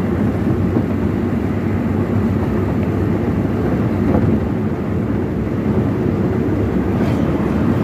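Vehicle engine and tyre noise heard from inside the cabin while driving at a steady speed, a continuous low hum.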